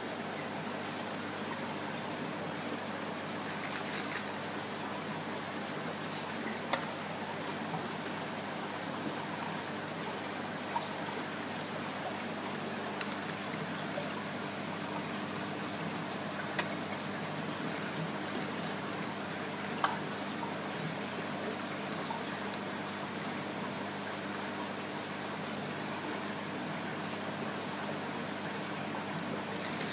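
Steady trickle and splash of aquarium water circulating through a filter, with a low steady hum underneath and a few short sharp clicks.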